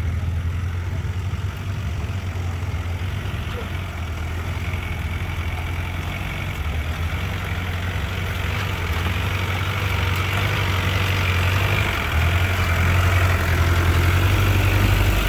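Off-road Land Rover's engine running steadily at low revs, with a constant deep hum; it grows slightly louder and more rushing over the last few seconds.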